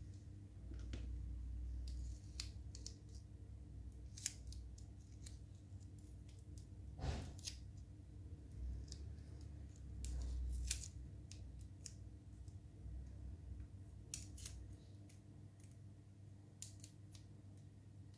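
Quiet, scattered light clicks and rustles of hands handling small craft pieces and a rolled paper strip, over a low steady hum.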